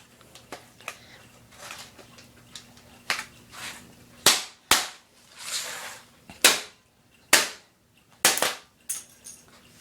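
Sharp cracks and knocks from a laptop's plastic casing being forced open by hand tools: about seven hard, irregular impacts in the second half, with a short scraping rasp between them.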